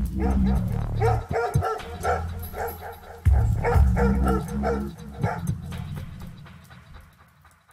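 Music with a heavy, deep bass that comes in abruptly twice, with dogs barking over it in quick series. It fades out near the end.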